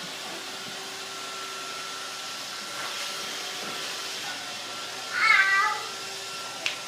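Roomba robot vacuum running steadily. About five seconds in comes one short, high-pitched cry, and a sharp click just before the end.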